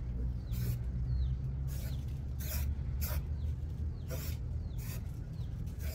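Aerosol spray paint can hissing in short bursts, about one a second, as paint is sprayed onto the base of a steel gate post.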